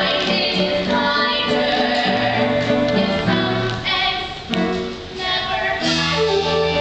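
Musical-theatre song: several voices singing together over instrumental accompaniment, with a brief break in the music about four and a half seconds in.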